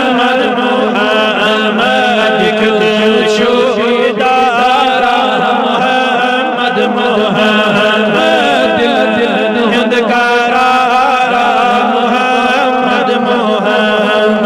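Male voice chanting a Kashmiri naat in long, drawn-out melodic phrases, with no clearly spoken words, over a steady low hum.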